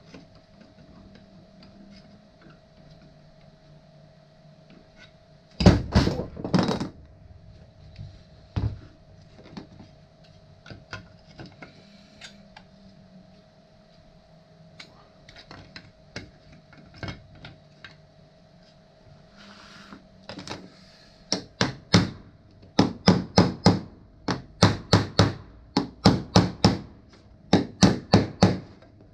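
Hammer blows on 3D-printed parts being knocked together: a few heavy strikes about six seconds in, scattered light taps, then from about twenty seconds on quick runs of several blows each, over a faint steady hum.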